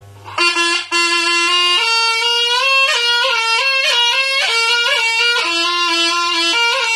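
Slompret, the double-reed shawm of Reog Ponorogo, playing a melody: it enters about half a second in, holds a low note, steps up to higher notes with quick ornamental turns, drops back to the low note and climbs again, sounding without a break after the first second.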